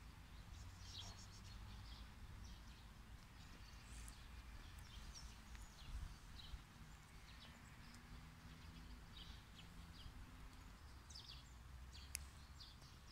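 Near silence: quiet outdoor ambience with faint, scattered high bird chirps and a single sharp click near the end.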